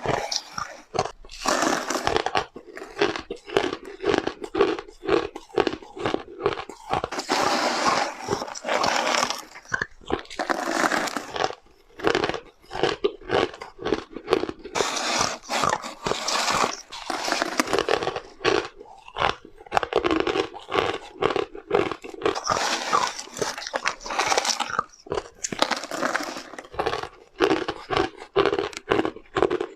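Close-miked crunching and chewing of ice from a spoon: dense, irregular cracking bites one after another, with a brief lull about twelve seconds in.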